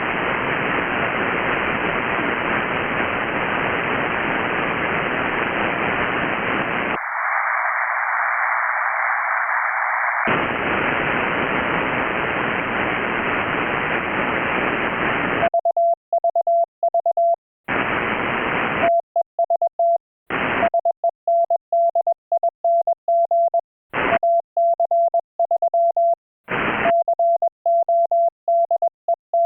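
Radio transceiver receive audio: steady band hiss that narrows to a thinner, higher-sounding hiss for about three seconds and then opens out again. About halfway through it gives way to a single mid-pitched Morse code tone keyed in dots and dashes, broken every few seconds by short bursts of receiver hiss.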